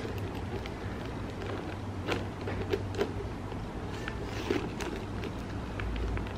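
Handling noise from a quilted leather shoulder bag being lifted and shown by its metal chain strap: scattered light clicks and clinks of the chain links and soft rustles, a few sharper ticks around two, three and four and a half seconds in, over a steady low hum.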